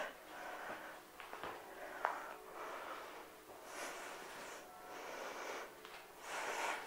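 A woman breathing hard, in and out, from the effort of reverse lunges, a breath every second or so. A couple of faint taps come in between.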